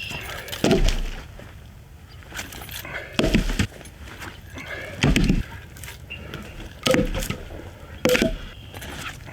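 Chunks of freshly cut log thrown down onto a woodpile, five heavy wooden thuds one to two seconds apart.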